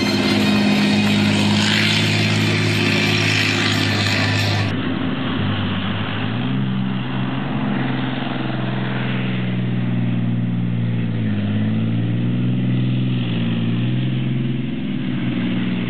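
Leopard 2 tank's MTU MB 873 V12 diesel engine running under load as the tank drives. The engine note steps up about six seconds in and dips and rises again about halfway through.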